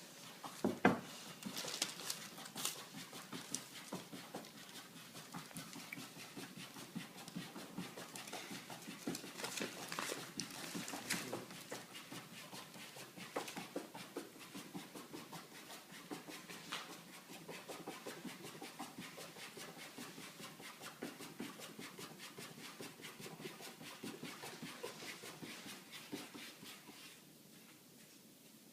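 An animal panting fast and steadily, with a few louder knocks and scuffles, the sharpest about a second in.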